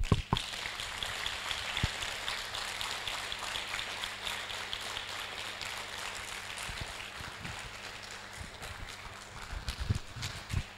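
A conference audience applauding, loudest at first and slowly fading, with a few low thumps near the end.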